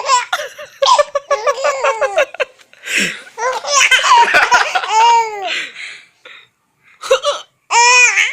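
A baby laughing hard in repeated bursts of high-pitched belly laughter, set off by an adult's hiccups, which are heard between the laughs.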